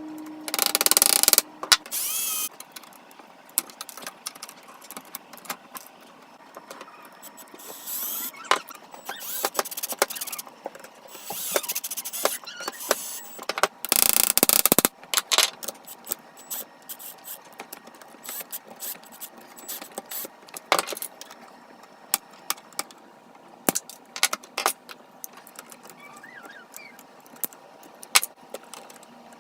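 Hinge and screw work on an old wooden table: scattered clicks, clinks and scrapes of metal hardware and tools, with short louder noisy bursts about a second in and again around fourteen seconds in.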